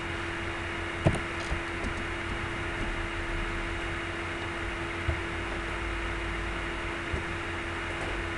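Steady background hiss with a constant low hum, with one sharp click about a second in and a few faint ticks.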